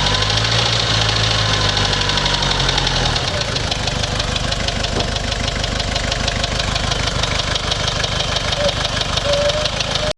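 Toyota 1KZ-TE 3.0-litre turbodiesel four-cylinder idling roughly with a steady, rapid knocking clatter; it is misfiring and uneven, which the owner suspects is a blown head gasket letting it burn coolant. A steady low hum drops away about three seconds in, leaving the running rougher.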